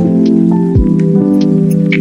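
Background music: sustained synth chords over a steady beat, with a deep bass hit that falls in pitch just before a second in.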